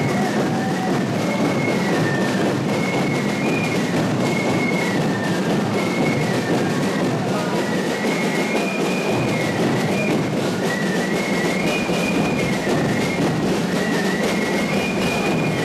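Fife-and-drum band playing a march: many fifes in unison carry a high, wavering melody over the steady rattle of snare drums.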